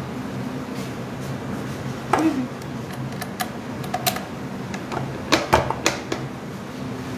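Steel beaters of an electric hand mixer, not yet switched on, clinking and knocking against a glass mixing bowl as the mixer is handled: scattered sharp clicks, the loudest about five to six seconds in. A steady low hum runs underneath.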